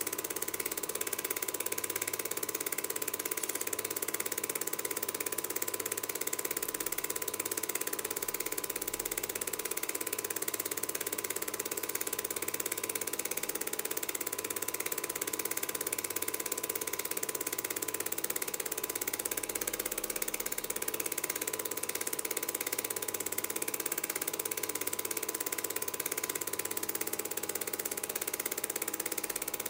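Film projector running: a steady mechanical clatter of the film transport with hiss, unchanging throughout.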